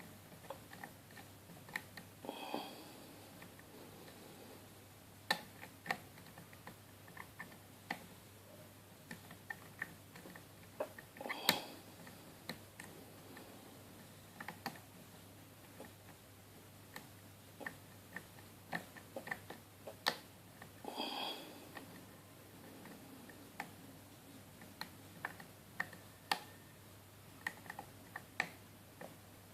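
Lock pick working the pin stack of a five-pin Zone euro cylinder: scattered light metallic clicks and ticks as pins are lifted and set, with a louder click about eleven seconds in.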